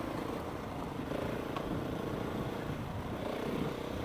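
KTM 690's single-cylinder engine running at a steady cruise, with wind rushing over the microphone.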